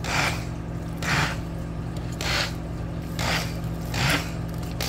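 Immersion blender pulsing through a pan of cooked ground beef, giving squelching, scraping bursts about once a second as the blade head is pushed down into the meat, over a steady low motor hum.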